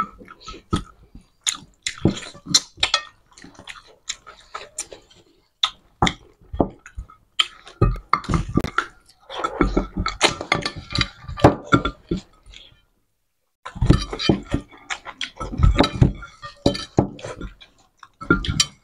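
Two people eating rice and mutton curry with their hands: wet chewing and lip-smacking, with fingers scraping and clicking against their plates. There is a brief gap of silence about two-thirds of the way through.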